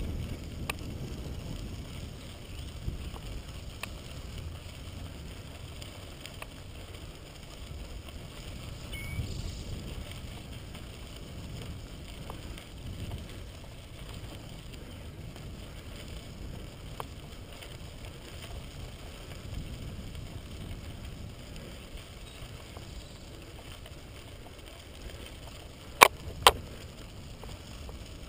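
Bicycle rolling along a crushed-stone trail: a steady low rumble of tyres on gravel and wind, with faint scattered ticks and two sharp clicks about half a second apart near the end.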